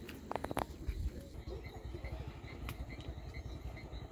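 Outdoor ambience: a steady low rumble of wind on the microphone, with a few short sharp calls near the start and, from about halfway through, a short high chirp repeating about three times a second.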